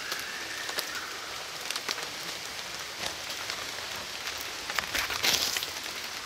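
Rain falling: a steady hiss with many scattered drop ticks and a louder rush of noise about five seconds in. A faint whistled note sounds in the first second.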